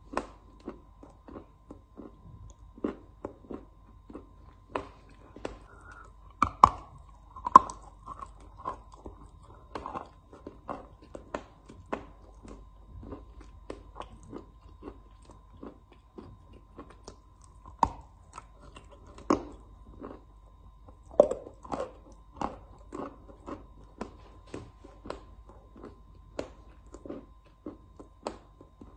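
A lump of chalk being bitten and chewed: irregular sharp crunches, several a second, with louder bites about a quarter of the way in and again past the middle. A faint steady high tone sits underneath.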